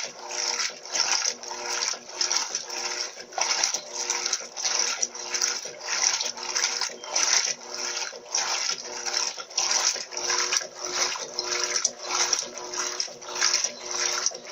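Electrolux Turbo LT12B top-loading washing machine agitating a load in the wash, water sloshing in a steady rhythm of about two surges a second over a faint steady motor hum.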